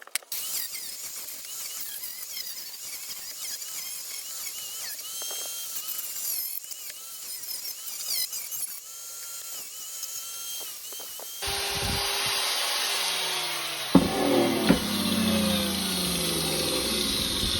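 Angle grinder with a wire brush wheel scouring forge scale off a stainless steel bar, the wire squealing against the metal. About eleven seconds in it gets louder and steadier, with two sharp knocks a few seconds later.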